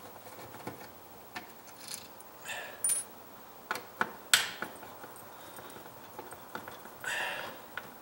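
Screwdriver working a wall switch's mounting screw: scattered small metallic clicks and scrapes, the sharpest about four seconds in, with a brief soft rustle near the end.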